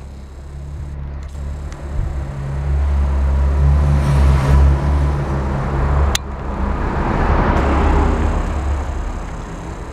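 Road vehicles driving past: a low engine hum and tyre noise swell twice, to a loud peak in the middle and again a little later, then fade away.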